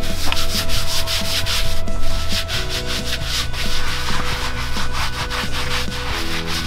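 Rubber curry comb scrubbing shampoo into a miniature horse's coat: a rough rubbing, scratching sound in quick repeated strokes, about three a second.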